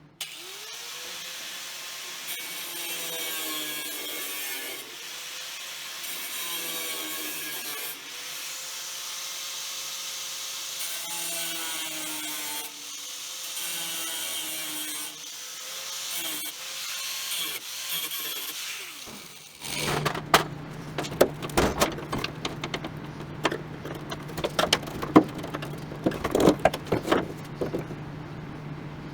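A power tool runs in repeated bursts, its motor pitch rising and then holding each time, as the trunk hinge brackets are worked on. About two-thirds of the way through this gives way to a run of sharp knocks and clatter over a steady low hum.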